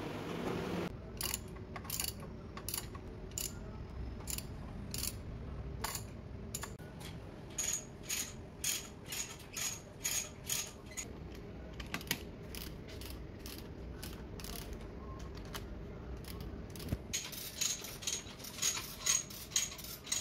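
Manual chain hoist carrying a CT scanner's X-ray tube, its ratchet clicking sharply about twice a second. The clicks come in louder runs midway and again near the end.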